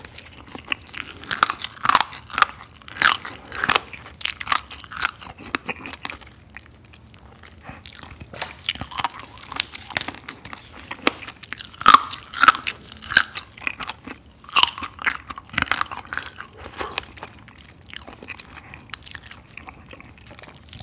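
Close-miked eating of soy-sauce marinated raw crab: crab legs bitten, crunched and chewed in a run of irregular, sharp, wet crunches.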